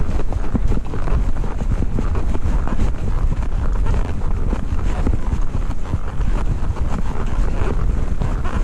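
Wind buffeting the microphone, a loud rumbling roar with many short, irregular knocks through it.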